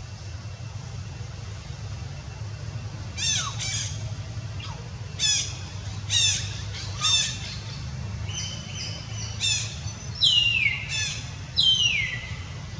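A series of about ten high-pitched, harsh animal calls beginning about three seconds in. The later calls are longer and fall in pitch. A steady low rumble runs underneath.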